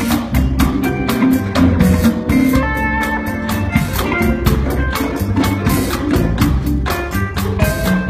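Live world-beat band playing: guitar and bass over drums keeping a steady beat.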